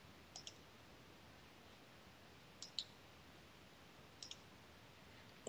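Faint computer mouse clicks, each a quick press-and-release pair, heard three times over near-silent room tone.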